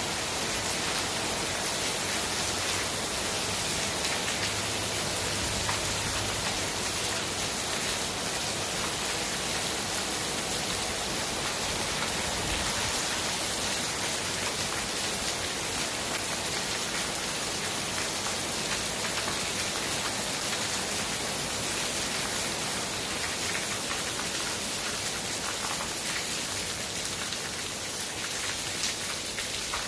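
Heavy downpour: dense rain falling steadily on bare earth, puddles and foliage.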